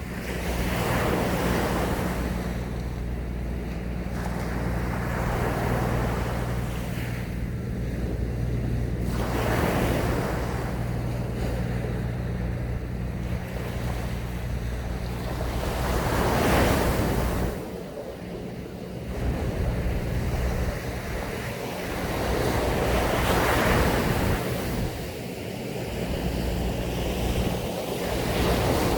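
Sea waves breaking and washing up a sandy beach, swelling and falling back every few seconds, with wind on the microphone. A steady low hum runs underneath and drops out briefly about two-thirds of the way through.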